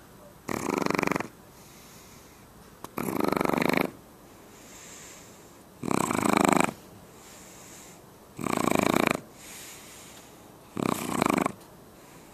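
Shar Pei puppy snoring in its sleep: five loud snores, each under a second long and about two and a half seconds apart, with softer breaths between them.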